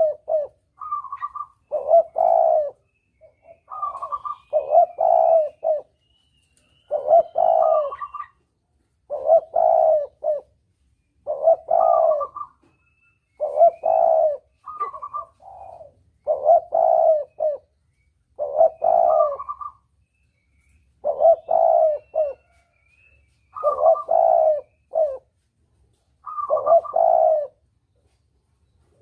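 Spotted dove cooing: a repeated multi-note coo phrase, one about every two seconds. This is a lure call recording used to draw doves in for hunting. Faint chirps of small birds sound between the phrases.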